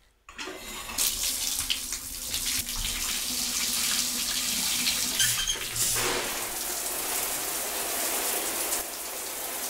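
Water gushing from a bathtub faucet into the tub once the handles are turned on, then switched over to spray from the shower head about six seconds in.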